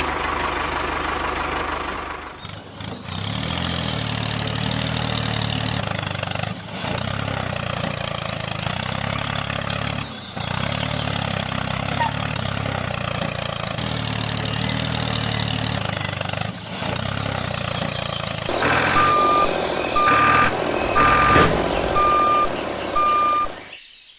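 Sound effect of a heavy vehicle's engine running steadily, broken by short dips every few seconds. Near the end a reversing alarm beeps about five times at an even pace, over the engine.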